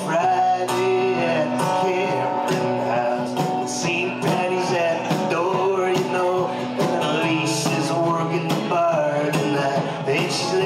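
Live band playing a country-tinged folk-rock song: acoustic guitar, keyboard and drums, with a steady beat of drum and cymbal hits under held and sliding notes.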